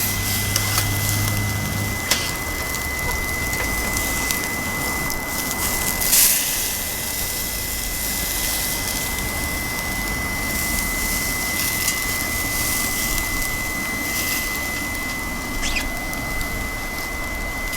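Pork steaks sizzling on the grill of a BioLite CampStove 2+, a steady rain-like hiss with a few scattered pops, over a steady high whine from the stove's blower fan running at full.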